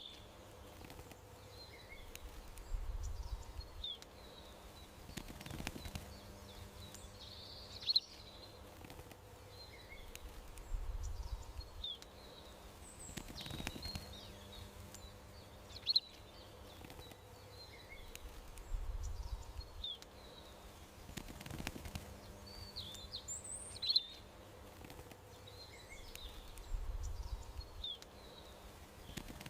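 Small songbirds giving short, scattered chirps over a faint steady hum. A low rumble and a sharp click each recur about every eight seconds.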